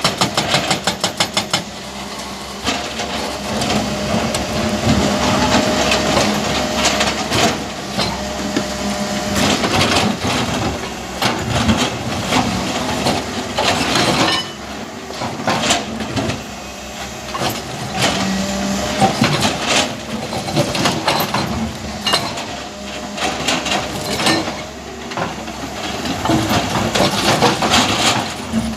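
Hydraulic excavator working on rock: its diesel engine runs under load with many metallic knocks and clanks of steel against stone, a rapid run of knocks at the start.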